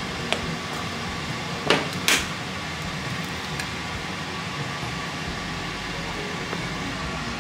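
An egg being cracked: two sharp taps close together about two seconds in, over steady background noise.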